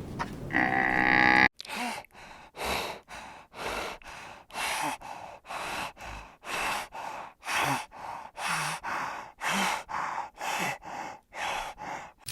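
A short pitched animal call cut off about a second and a half in. It is followed by a long run of short, breathy, rhythmic huffs, about two a second: an animal panting heavily.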